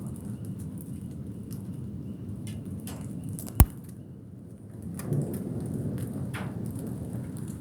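Low, steady roar of a supercell thunderstorm's updraft overhead, a rumbling sound like a distant jet. It dips briefly just past the middle, then swells again. A single sharp click comes about three and a half seconds in, among scattered faint ticks.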